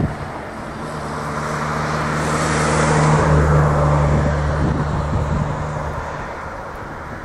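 A motor vehicle passing on the road: tyre and engine noise swelling to a peak about three seconds in, then fading away, with a steady low engine hum under it.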